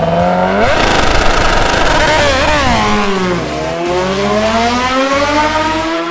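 Superbike racing motorcycle engine at high revs, its pitch sweeping up and down as it accelerates. The pitch drops about three and a half seconds in, then climbs steadily again.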